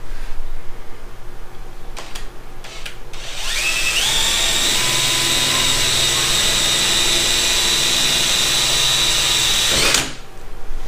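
Cordless drill drilling a 1/8-inch pilot hole through the car's trunk-lid body panel: after a few clicks the motor whine rises as it spins up about four seconds in, runs steady for about six seconds, and cuts off suddenly near the end.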